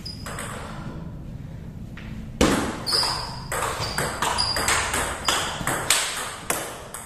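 Table tennis rally: the ball clicking sharply off the rubber paddles and the table in quick back-and-forth alternation, about a dozen strikes, starting after a quiet lull of a couple of seconds.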